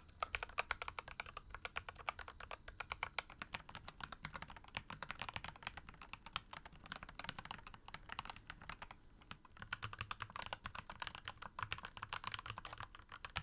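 Fast, continuous typing on a mechanical keyboard, many key presses a second, in keycap sound tests. The sound changes character after short lulls about six and nine seconds in, with more low thud after the second lull.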